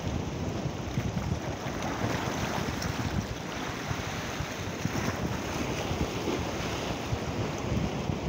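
Wind buffeting the microphone over the steady wash of small waves breaking and running across shallow water against a rocky shore.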